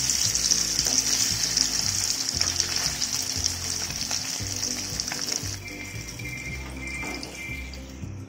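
Masala-coated fish shallow-frying in hot oil in a kadai: a loud, steady sizzle that drops away sharply about five and a half seconds in.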